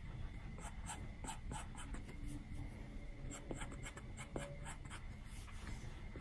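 Stylus tip on an iPad's glass screen, drawing: quick, irregular ticks and short scratchy strokes, several a second.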